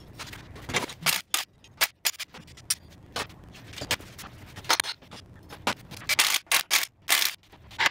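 Irregular metallic clicks, clinks and scrapes of engine parts and hand tools being handled and set down on a steel cart, thickest near the end.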